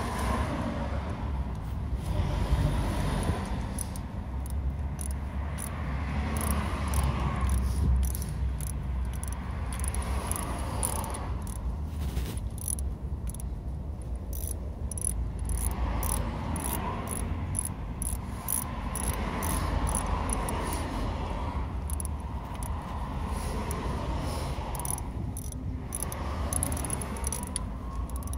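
Socket ratchet clicking in short, irregular runs as the throttle body bolts are tightened, over a steady low rumble. A siren starts rising in pitch near the end.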